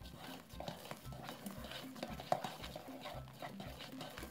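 Wooden whisk beating a thick toothpaste-and-shower-gel slime mixture in an enamel bowl, with many quick, irregular clicks as it strikes the bowl. Soft background music plays underneath.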